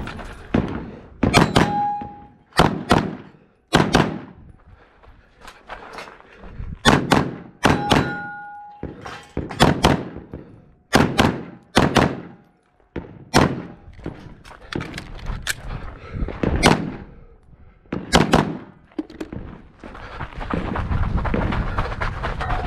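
Pistol fired in a string of about twenty shots, many in quick pairs, with a short ringing tone after a couple of them. Near the end the firing stops and a steady rush of noise takes over.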